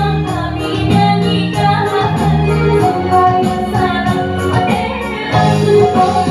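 Music for a Malay endang dance: a woman's voice singing a melody over a steady percussion beat.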